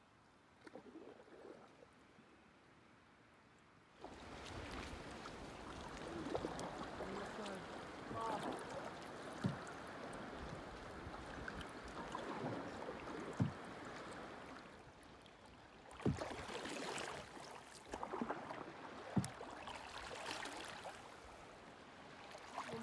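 Canoe paddling: water swishing and gurgling with the paddle strokes, starting about four seconds in, with a few sharp knocks along the way.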